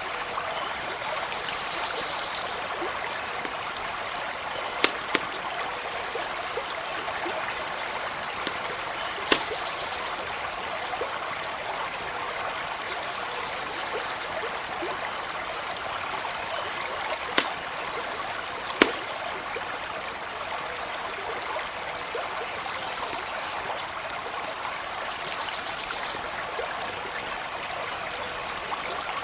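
A stream running steadily, with a handful of sharp campfire pops and crackles scattered over it.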